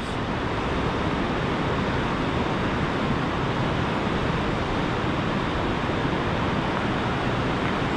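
A steady, even rushing noise with no clear pitch.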